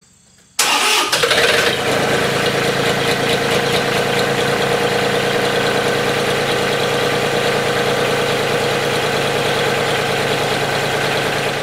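An engine bursts into sound about half a second in and then runs at a steady speed with an even hum.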